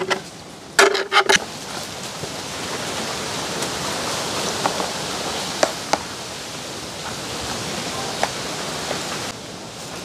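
A bee or fly buzzing close by for the first second and a half. Then a plastic spoon scrapes and knocks against an aluminium pot and plastic containers as cooked rice is dished out, with a few sharp clicks over a steady hiss that cuts off shortly before the end.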